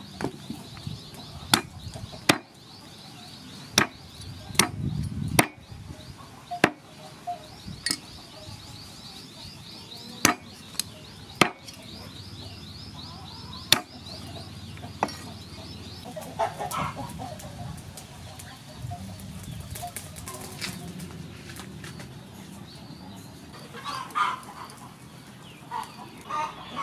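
Heavy cleaver chopping raw chicken on a wooden chopping board: about a dozen single sharp strikes at uneven intervals, mostly in the first half. Chickens cluck in the background, with a few calls later on.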